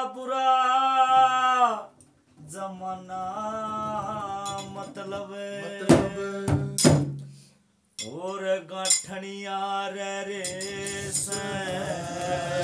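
Opening music of a Haryanvi ragni: a sustained, gliding melody with two sharp drum strikes about six and seven seconds in, broken by two short pauses.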